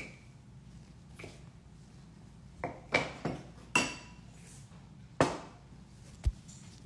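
About six sharp clinks and knocks of a stainless steel cup being handled and set against a hard surface, starting some two and a half seconds in. Two of them ring briefly like struck metal.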